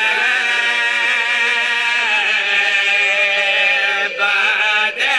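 Men's voices chanting a Punjabi mourning lament (vain) in long, wavering held notes: a lead reciter with the men beside him singing along. The sound breaks off briefly twice near the end.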